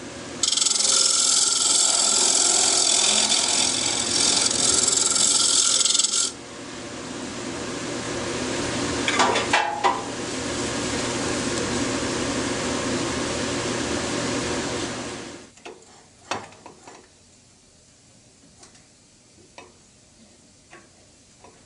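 A turning tool cutting the inside of a spinning Siberian elm and red epoxy resin bowl on a wood lathe: a loud, steady hiss for about six seconds, then a softer scraping over the lathe's low hum. Near the end the cutting stops and only a few light clicks are left.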